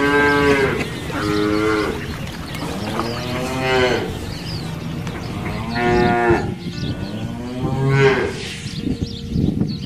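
Cattle mooing: about five separate moos, some short and some drawn out, over steady outdoor background noise.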